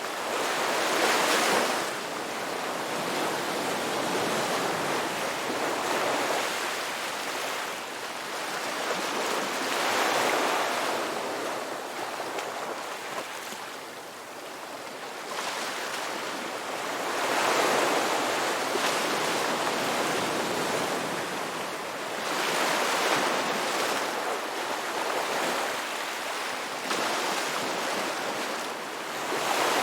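Ocean surf: waves breaking and washing in, the sound swelling and falling back every several seconds.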